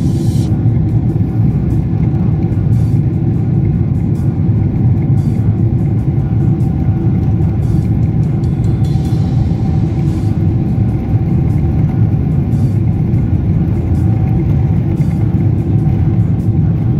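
Cabin sound of a Boeing 777-300 on its takeoff roll: the jet engines at takeoff thrust and the wheels on the runway make a loud, steady rumble. Light knocks come about once a second as the aircraft accelerates.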